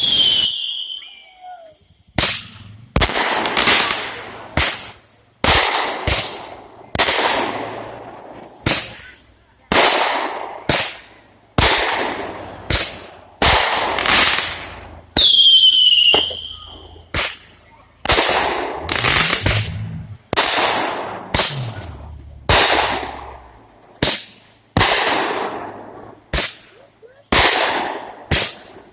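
Fireworks going off in a fast series of sharp bangs, roughly one a second, each fading quickly. Falling whistles sound at the start, about halfway through and near the end.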